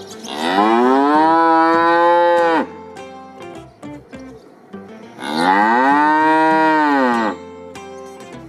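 A cow mooing twice. Each moo is one long call of about two seconds that rises, holds steady and drops at the end.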